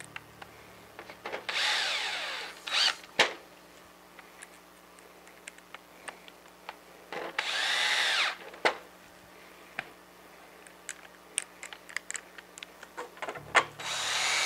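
Cordless drill driving small countersunk screws into a plastic RC truck bed. It runs in three short bursts of about a second each, and each run rises and falls in pitch as the screw goes in and seats. Small clicks of handling fall between the runs.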